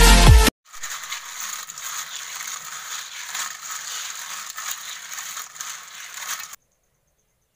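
A brief burst of electronic dance music, then river snail shells being rubbed and scrubbed together by hand in a basin of water, a steady clattering and grinding of many small shells. The clattering stops abruptly about a second before the end.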